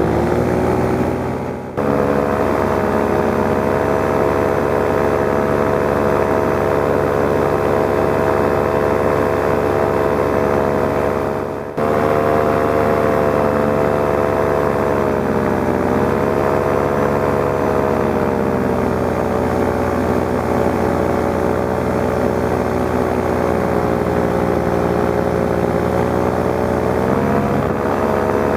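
Paramotor engine and propeller running steadily in flight, its pitch shifting a little with the throttle: rising in the first second, dipping and recovering about halfway through, and rising again near the end. The sound cuts out briefly twice, about two and twelve seconds in.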